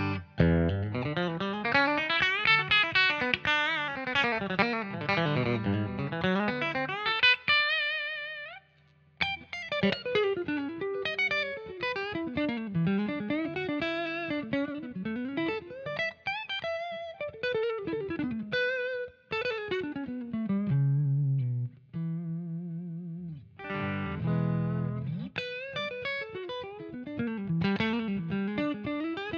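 Stratocaster-style electric guitar played through a J. Rockett Revolver vibe/boost pedal: quick melodic runs sweeping up and down, with a short break about eight seconds in and a few held notes that waver.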